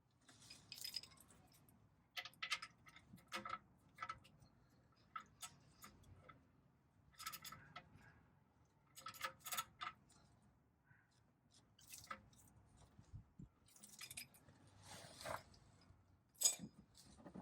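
Faint, irregular metallic clinks and clicks from a socket wrench and steel drain bolt as the bolt is refitted and tightened.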